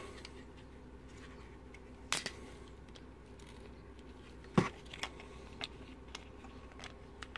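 Small clicks and knocks from a bug zapper racquet's plastic handle and circuit board being turned over in the hands. The sharpest knock comes about halfway through, with lighter clicks before and after, over a faint steady hum.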